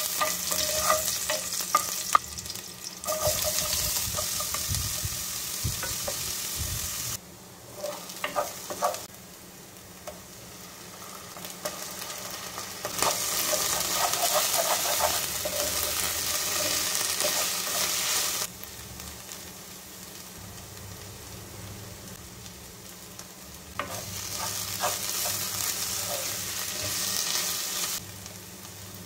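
Chopped garlic, then onions and tomato, sizzling in hot oil in a pot, with a wooden spatula stirring and scraping. The sizzle comes in several stretches that start and stop abruptly, with quieter gaps and a few clicks between them.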